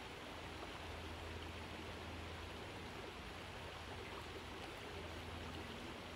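Creek water running steadily over a stony bed: an even, constant rushing hiss.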